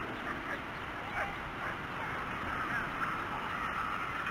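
Birds calling in the distance, many short wavering chirps overlapping, over a steady outdoor hiss.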